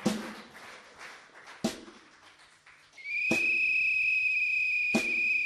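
A high, steady whistle tone, sliding up slightly as it starts about three seconds in and held to the end. Before and through it come sharp single knocks, evenly spaced about a second and a half apart, opening a band's train song.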